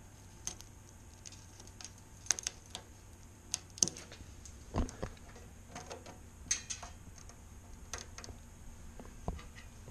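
Irregular light clicks and taps of a hand handling the brittle, cracked electrical wiring against the metal frame of a 1980 Powermatic Model 95 scroll saw, with a few louder knocks near the middle.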